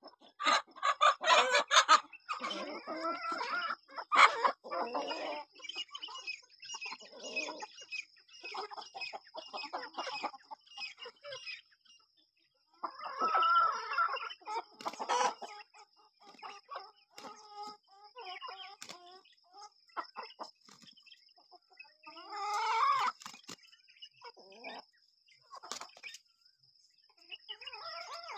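Domestic chickens clucking on and off, with a rooster crowing about three times: about a second in, near the middle and a little after two-thirds of the way.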